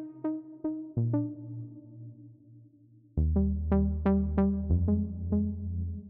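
u-he Zebra software synthesizer playing the 'Pluto' keys preset: short, quickly fading plucked notes over held low bass notes that change a few times. It gets louder about three seconds in, when a fuller bass note comes in under the plucks.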